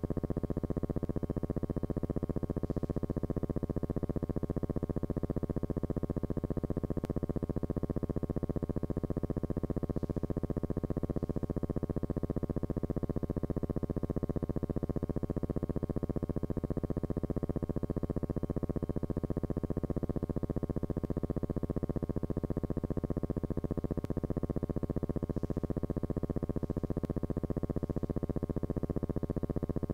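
Steady low electrical buzzing hum with many overtones, unchanging throughout; the film itself is silent, so no aircraft or drone sound is heard.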